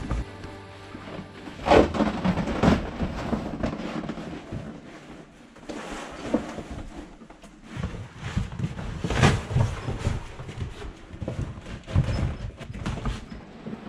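Old vinyl floor covering being pulled up and handled: stiff sheets rustling and flapping as they are lifted and folded, with a few sharp thumps as they drop onto the floor.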